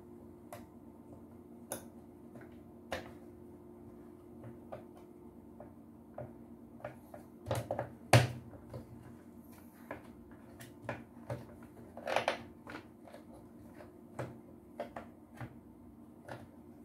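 Scattered clicks and light knocks from a vacuum cleaner motor unit being handled and turned over in the hands, with a sharper knock about eight seconds in and a small cluster a few seconds later. A steady low hum runs underneath.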